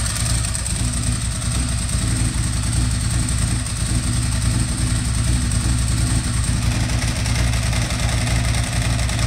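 2009 Ducati Monster 1100's air-cooled L-twin engine idling steadily.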